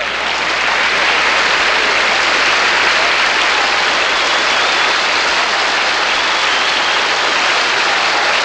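Studio audience applauding: a long, steady round of clapping after a comedy routine.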